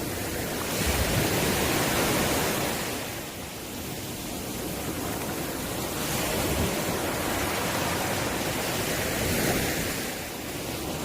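Ocean waves breaking and washing up the shore in slow surges: one swell about a second in, another building through the middle and falling away near the end.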